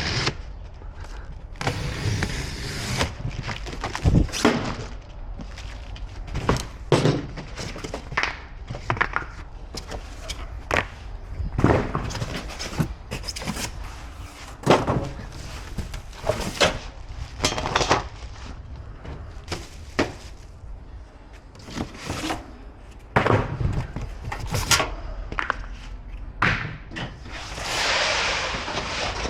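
Irregular thunks, knocks and clatter, with a few stretches of rustling, as gas grill parts and their packaging are handled during assembly.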